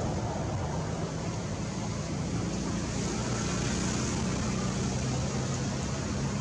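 A steady low hum under a constant hiss, unbroken throughout.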